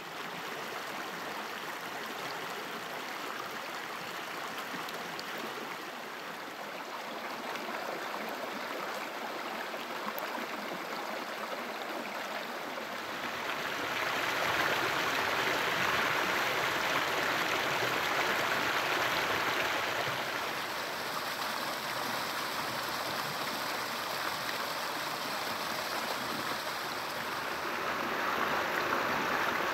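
Shallow rocky creek flowing over and between rocks: a steady rush of water that gets louder about halfway through.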